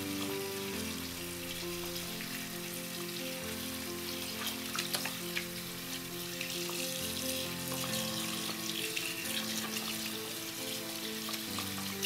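Bathroom faucet running into a sink while soapy hands are scrubbed under the stream, a steady hiss of water with a few small splashes. Background music plays a simple melody of held notes over it.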